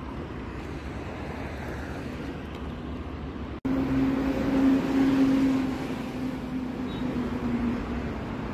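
Outdoor road-traffic noise, a steady rush of passing cars. After an abrupt cut about three and a half seconds in, it grows louder, with a steady engine hum that lasts a few seconds and then eases off.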